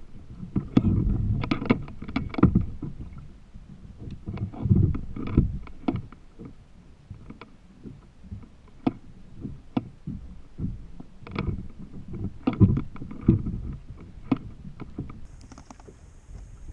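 Handling noise from a kayak's pedal-drive unit being held and worked over the plastic hull: irregular knocks, clicks and low thumps, the drive's idler cable having broken off.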